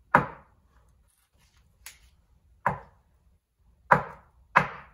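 Reassembled RockShox Charger 2.1 damper being worked by hand to test its compression damping, giving sharp knocks with a short ringing tail. Four knocks come at uneven intervals, the last two close together near the end.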